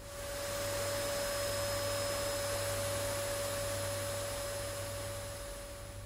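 Robot vacuum's motor running with a steady whine over a hiss of air. It swells over the first second and slowly fades toward the end.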